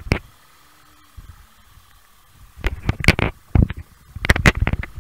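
Wind buffeting on an onboard motorcycle camera's microphone: loud, irregular gusts of rumble and hiss, which drop to a lull just after the start and come back about halfway through.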